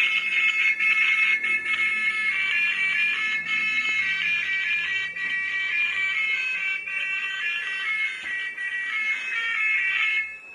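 A tinny electronic melody of high, quickly changing beeping notes, like a small sound chip playing a tune, which drops away briefly near the end.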